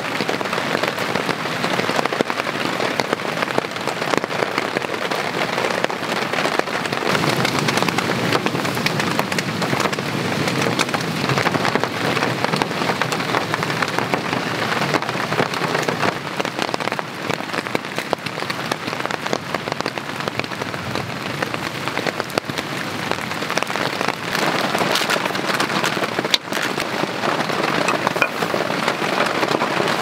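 Heavy rain falling steadily, with a single sharp click near the end.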